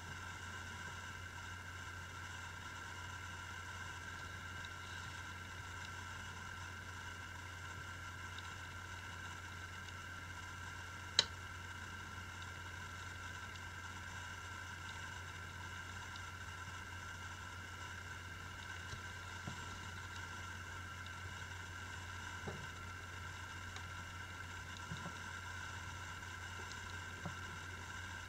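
Steady low electrical hum and hiss of room tone, broken by one sharp click about eleven seconds in and a few faint ticks near the end.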